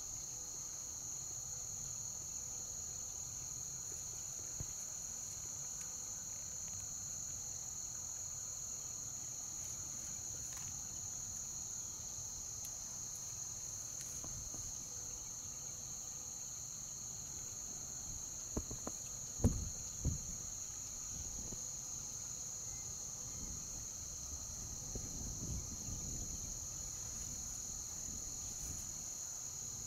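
Steady, high-pitched chorus of insects running on without a break. A few brief low knocks sound about two-thirds of the way through.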